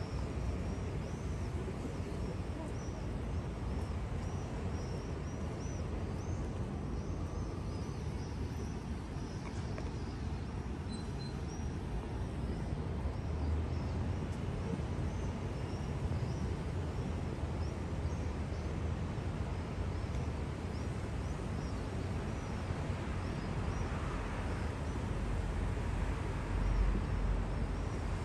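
Steady low outdoor rumble, with small birds chirping repeatedly and thinly high above it, mostly through the first half.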